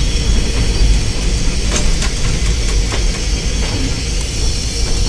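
Cab of the narrow-gauge steam locomotive No. 190 under way: a steady low rumble with hiss above it and a few sharp, irregular clicks.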